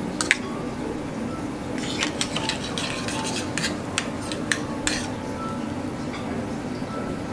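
Metal spoon clinking and scraping against a small stainless-steel sauce cup as sauce is ladled out and spooned onto plates: one sharp clink just after the start, then a run of light clicks between about two and five seconds in. A steady low hum runs underneath.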